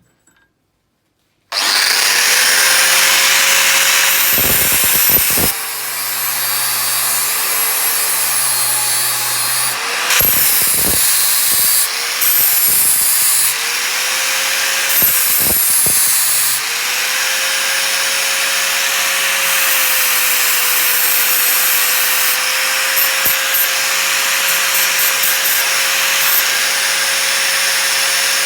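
An electric grinder running and grinding steel, starting about a second and a half in, with the sound changing several times as it goes. This is the finishing stage, putting the edge on and tidying up a freshly forged steel piece.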